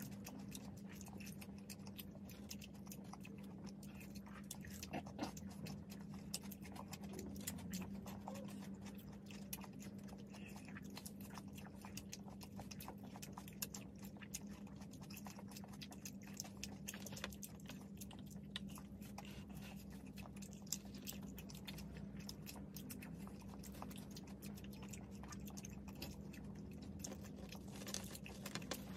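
Chewing and mouth sounds of two people eating french fries, a dense run of small clicks and soft crunches, over a steady low hum.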